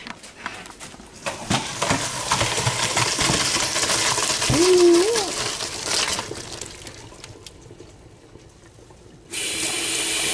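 Water pouring and splashing into a kitchen sink with clattering, as the crawfish boil liquid is drained off. Near the end a steady stream of running water starts suddenly.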